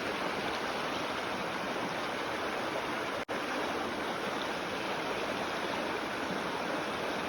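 Creek water rushing steadily over a trout stream's riffles, as an even wash of noise; it drops out for an instant about three seconds in.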